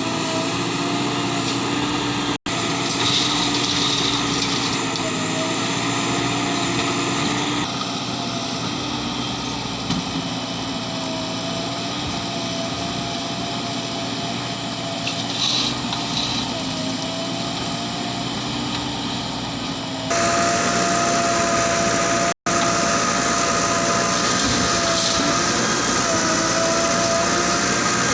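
JCB 3DX Plus backhoe loader's diesel engine running under load, its pitch rising and falling slightly as it works. The sound drops out briefly twice.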